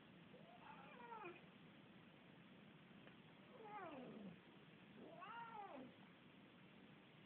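Domestic cat meowing three times, drawn-out calls that rise and fall in pitch, the last an arching one about five and a half seconds in.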